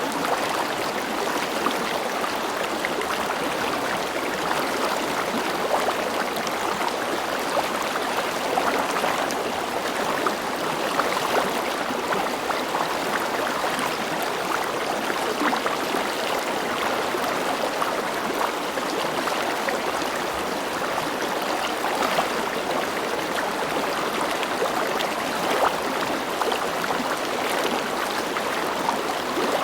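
River water flowing steadily over rocks, a continuous rushing with small splashes and gurgles.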